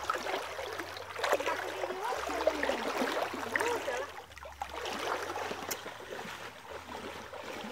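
Water splashing and sloshing as people wade through a shallow stream, with trickling and gurgling.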